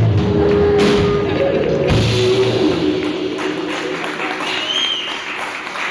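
A rock band of electric guitars, bass, keyboard and drum kit plays its closing notes, with two loud drum and cymbal hits in the first two seconds. The held chord rings out and fades after about three seconds, and applause rises as it dies away.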